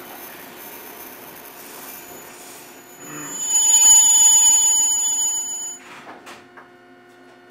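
Eizan Electric Railway Deo 700 series railcar running. About three seconds in, a loud, high-pitched wheel squeal rises in, holds for over two seconds and cuts off sharply, leaving quieter running noise with a few clicks.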